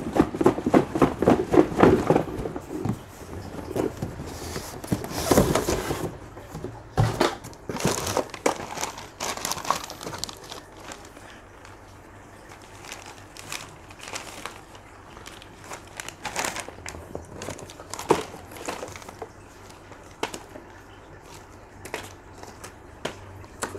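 Clear plastic parts bags crinkling and rustling as they are handled, with irregular clicks and taps, busier in the first half.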